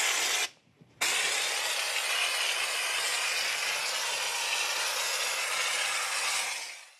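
Air-powered bedliner spray gun with a quart bottle of Alpha Liner attached, spraying the texture coat: a steady hiss that stops briefly about half a second in, then runs on for about six seconds and fades out at the end.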